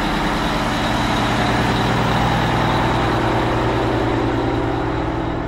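Heavy military HET tractor truck's diesel engine idling steadily.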